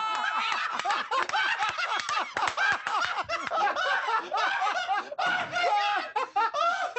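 Prolonged, hearty laughter, with more than one voice overlapping.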